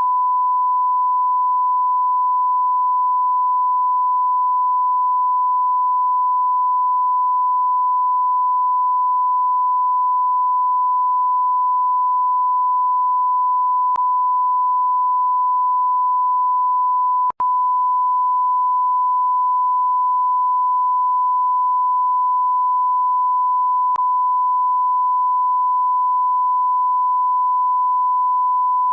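Censor bleep: one continuous pure tone held at a single steady pitch, broken by a split-second gap about two-thirds of the way through.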